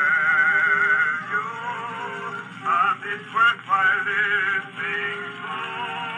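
Edison Standard cylinder phonograph playing back a Blue Amberol cylinder: a male vocal trio singing with vibrato over accompaniment. The sound is thin, with no deep bass or high treble, as from acoustic playback. A long note is held near the start.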